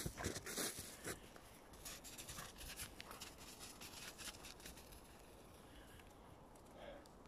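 Footsteps crunching in snow, loudest in the first second, then fainter scattered crunches and scuffs that die away to a quieter stretch.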